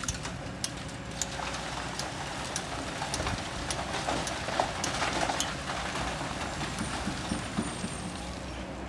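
Kobelco hydraulic excavator's diesel engine running steadily while a bucketload of sand and stones is dumped down a chute into a dump truck, a pouring rattle that swells from about three to six seconds in. Sharp ticks recur about twice a second.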